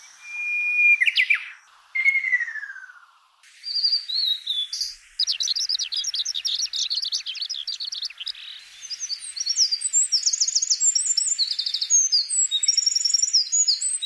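Songs of several different wild songbirds played one after another, each segment starting abruptly. First come clear whistles and a falling whistle, then a fast high trill, then a complex, high, rapid song near the end.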